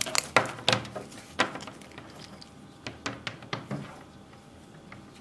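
Sharp clicks and knocks of small hard objects handled on a workbench, from hooking up bench power-supply leads: a quick burst of them in the first second and a half, then a few softer ones about three seconds in.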